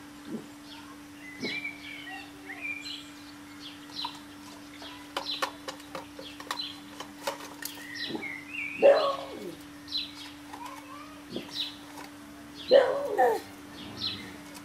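Small birds chirping in short, scattered calls over a faint steady hum. From about five to seven and a half seconds in there is a run of sharp clicks and crackles from a thin plastic cup being handled. Two louder short vocal sounds come about nine and thirteen seconds in.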